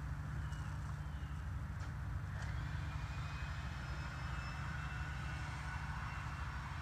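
Steady low engine drone, with a few faint light clicks in the first couple of seconds.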